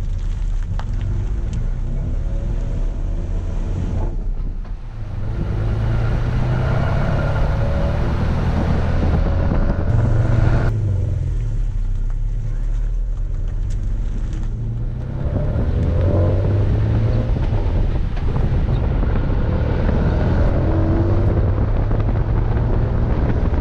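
Exhaust of a 2018 Toyota Tacoma TRD Off-Road fitted with a stainless steel DC Sports muffler tip, running with a deep, throaty note; it grows louder about five seconds in and again about fifteen seconds in.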